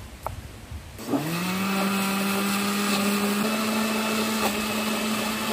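Countertop electric blender starting up about a second in, its motor whining quickly up to speed and then running steadily as it blends chopped fruit into juice, its pitch stepping up slightly a couple of seconds later.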